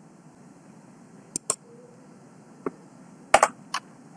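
Computer mouse clicks: about six short, sharp clicks at uneven spacing, a pair about a second and a half in and a quick cluster a little after three seconds, over faint steady background hiss.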